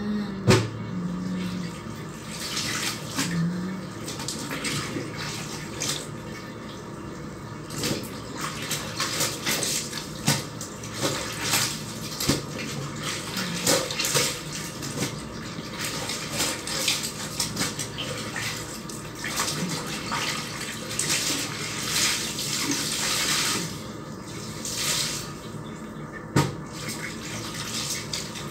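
Clothes being hand-washed in a plastic basin of soapy water: irregular sloshing, splashing and squelching as wet fabric is scrubbed and lifted. A sharp knock about half a second in.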